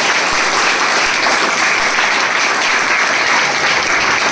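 A roomful of people clapping together, a dense, steady applause.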